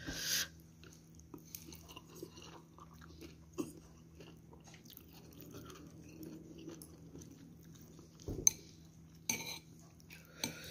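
A person eating noodle soup: quiet chewing, with scattered light clicks of a metal spoon and chopsticks against the bowl, a couple of them sharper towards the end.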